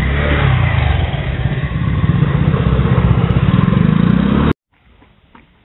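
Motor scooter's small engine running close by as it rides past, getting louder and rising in pitch toward the end, then cutting off abruptly about four and a half seconds in.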